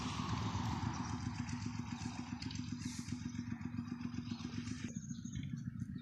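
A motor running steadily, with a low, even rumble and a held hum; the sound changes abruptly about five seconds in.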